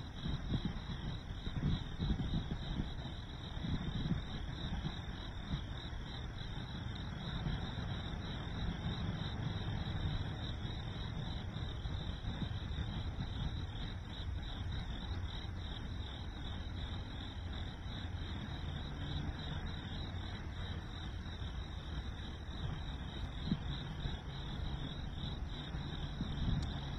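Steady chorus of crickets, a continuous high pulsing trill, over a low rumble.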